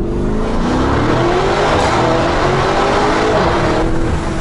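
Lamborghini Urus twin-turbo V8 accelerating hard from standstill in Corsa mode, the engine note climbing again and again as it pulls through the gears. Heard from inside the cabin with the windows open in a tunnel.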